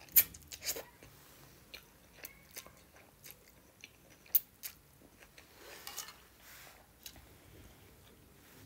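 Close-miked chewing of fried Wai Wai instant noodles: scattered soft wet mouth clicks and smacks, the sharpest about a quarter second in and again about four seconds in.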